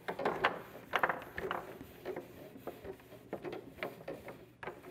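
Foosball table in play: the ball and the rod-mounted players knock and clack irregularly as the rods are spun and slid, with a quick cluster of knocks about a second in.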